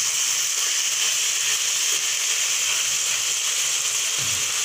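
Chicken pieces sizzling in hot oil in a wok, a steady hiss.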